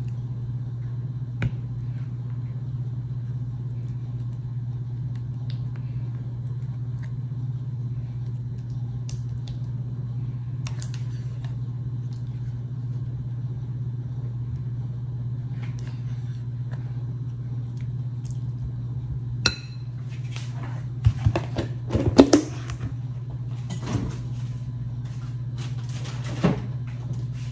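A steady low hum, like an appliance or fan running in the kitchen. About twenty seconds in come a few clinks and knocks as a metal spoon is set down in a glass mixing bowl of boiled potatoes.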